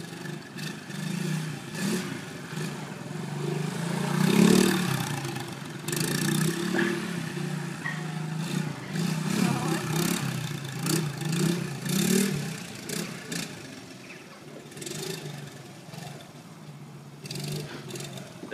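Honda ATC70 three-wheeler's small four-stroke single-cylinder engine revving up and down as it is ridden. The pitch rises and falls every second or so, loudest about four seconds in.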